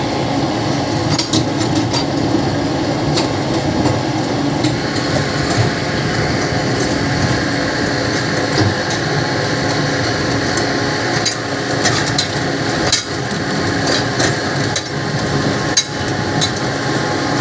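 A steady mechanical hum with many irregular clicks and knocks over it.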